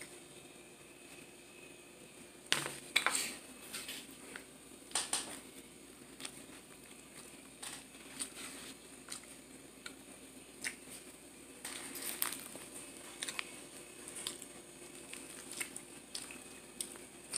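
Scattered short clicks, crinkles and scrapes of a plastic meal bowl and fork being handled at a table, over a faint steady hum.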